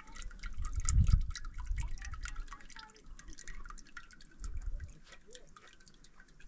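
Liquid sounds: a steady run of quick drips and small pops, with a low rumble about a second in and another around four and a half seconds.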